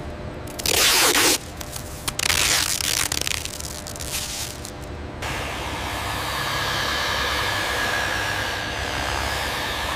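Masking tape torn off the roll in two loud rips, the first about a second in and the second about two seconds in. From about five seconds in, a hand-held rotary polisher with a wool pad buffs fuselage paint, a steady whirring hiss with a faint whine.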